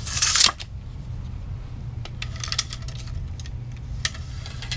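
Steel tape measure blade rattling and scraping along a wooden 2x4 in a short burst at the start, then a few light metallic clicks of the tape case and blade.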